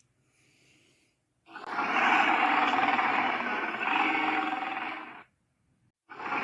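Cartoon alligator sound effect: a loud, rough growling roar lasting about four seconds, with a second one starting near the end.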